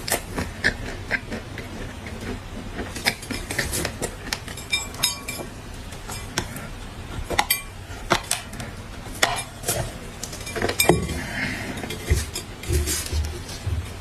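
Pieces of dry black clay being bitten and chewed, giving sharp, irregular crunches and cracks.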